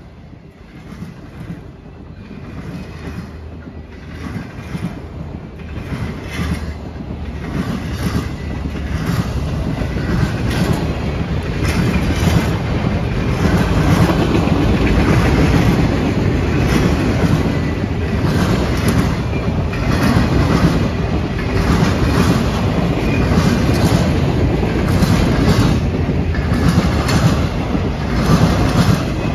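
Autorack freight cars rolling past, their steel wheels clicking over the rail joints in a clickety-clack. It grows louder over roughly the first half, then holds steady.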